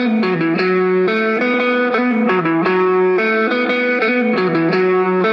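Background music: a guitar with an effects-laden tone plays a riff that repeats about every two seconds.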